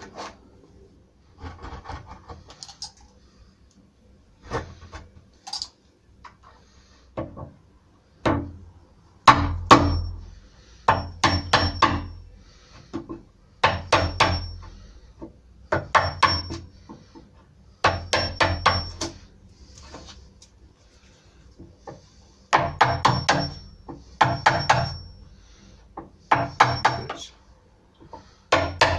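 A wood chisel is struck repeatedly to chop out a recess in a timber door for a mortice deadlock fitting. Light taps and paring come first, then from about eight seconds in there are short runs of quick, sharp knocks with a slight metallic ring, and pauses between them.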